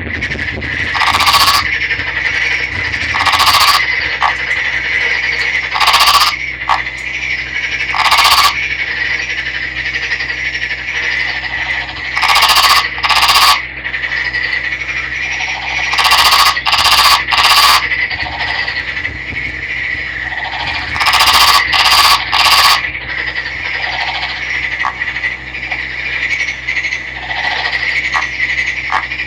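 Male Nagoya daruma frog calling: loud rattling croaks in bursts of about half a second to a second, every few seconds, some in quick runs of two or three, over a steady high-pitched background tone.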